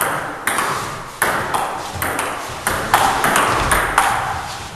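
Table tennis rally: the celluloid ball clicking back and forth off the players' rubber-covered bats and the table, about a dozen sharp clicks, each with a short echo.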